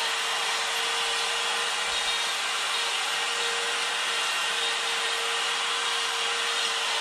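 Electric die grinder with a coarse Saburrtooth flame burr running steadily with a constant whine, grinding away and smoothing the wood of a small carved heart.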